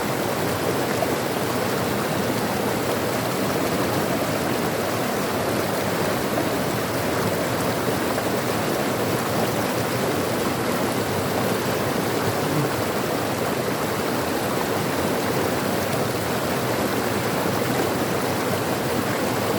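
Flowing water, a steady, unbroken rush with no pauses or changes.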